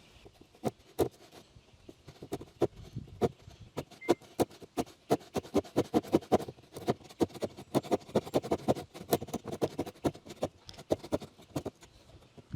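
Handsaw cutting through a Formica laminate countertop in short, quick strokes, about three a second, sparse at first and steady from about two seconds in.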